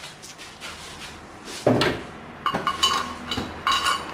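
Metal tools and brake parts clinking and clanking as a brake caliper is taken off a car's wheel: a dull knock, then two short bursts of ringing metallic clatter.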